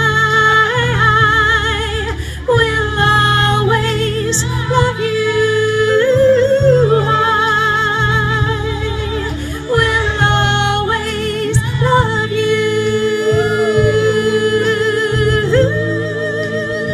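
Woman singing into a microphone over amplified accompaniment, holding long notes with wide vibrato in phrases separated by short breaths.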